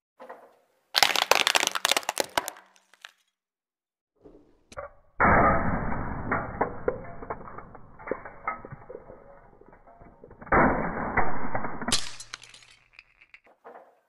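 A car tyre crushing small plastic toys and containers: repeated cracking, snapping and crunching of breaking plastic. It comes in separate rounds, a sharp burst about a second in, a long run of dense crackling in the middle, and another loud burst with scattered clicks near the end.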